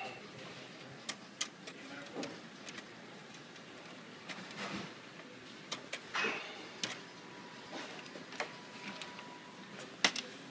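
Scattered clicks and knocks of hands handling a copier's internal metal cover plate and panels while fitting an image processor board, with a sharper knock near the end.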